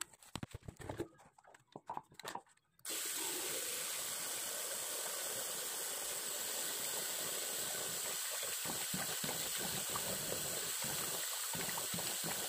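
A few light knocks, then a bathroom tap is turned on about three seconds in and water runs steadily into the sink. In the second half, hands splash water onto the face under the running tap.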